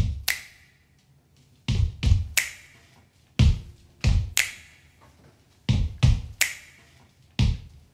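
Body-percussion beat of foot stomps on a wooden floor and finger snaps: each beat a low thud followed a moment later by a sharp snap, repeating slowly and evenly about every 1.7 seconds.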